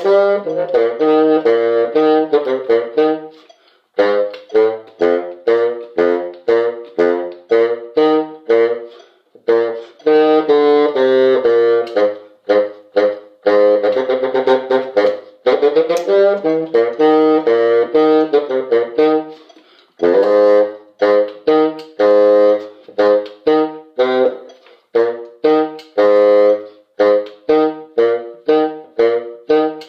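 Instrumental music from several wind instruments playing a tune together in short, detached notes, pausing briefly between phrases.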